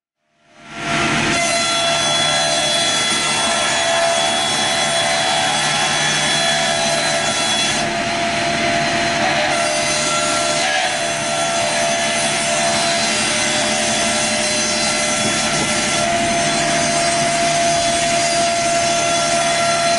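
Amix OF-300 board edger running, its saws trimming the bark edges off boards fed in on the belt conveyor: a steady cutting noise with a constant whine in it, starting about half a second in.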